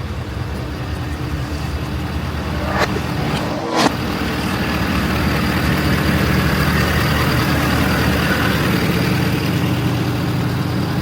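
Ford Super Duty pickup truck's engine running steadily, growing a little louder about five seconds in, with two sharp knocks about a second apart near the four-second mark.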